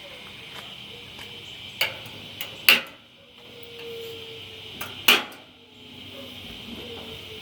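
Metal clanks from a steel drum smoker's latches and lid being worked open: two loud sharp clanks about two and a half seconds apart, each with a lighter click just before it.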